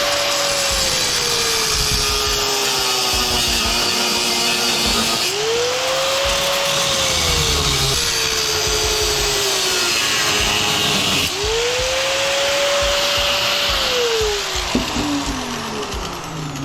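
Handheld electric power tool cutting metal PEX clamps off copper pipe: a loud motor whine whose pitch sags as it bites and climbs back as the load eases, three times over, then winds down near the end.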